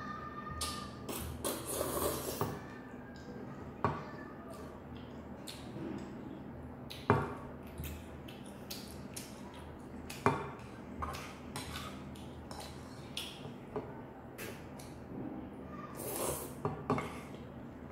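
Slurping and chewing of spicy instant noodles eaten with chopsticks from a small frying pan, in bursts near the start and again near the end. Sharp clinks of the chopsticks against the pan come twice in the middle and are the loudest sounds, over a faint steady hum.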